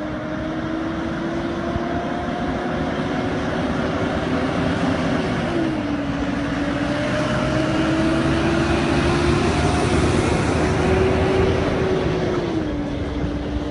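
Road train prime mover's diesel engine pulling hard under load, its pitch climbing steadily and then dropping with a gear change twice, near the middle and near the end.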